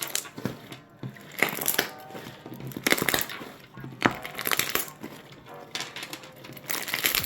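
Air-dried fluffy slime crackling and crunching as it is squeezed and broken by hand: about ten short, sharp crunches at irregular intervals.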